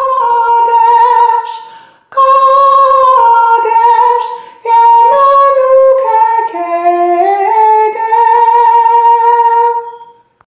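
A woman singing solo and unaccompanied in a high voice, a slow melody in three phrases with short breaths between them. The last note is held for about two seconds and fades out near the end.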